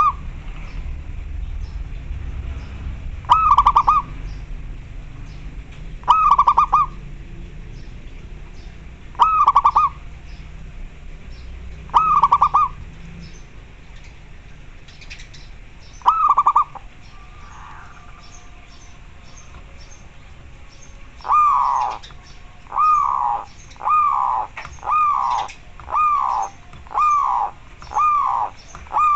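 Zebra dove (local perkutut) calling with short rippling coos. Six single coos come about three seconds apart, then after a pause of several seconds a faster run of about nine coos, roughly one a second.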